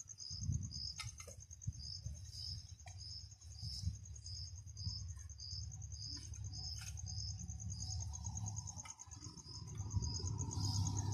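Insects chirping: a high, fast-pulsing trill that runs without a break, with a slower repeated chirp about twice a second under it, over a low rumble. A few light clicks come through here and there.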